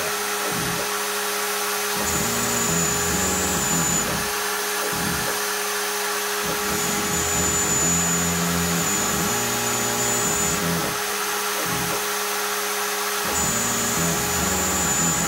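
Ox Max CNC router routing plywood: the spindle runs steadily at full speed, about 22,000–25,000 RPM, while a 2.5 mm serrated down-cut bit cuts. A lower hum changes pitch every second or two as the cutter moves along its path.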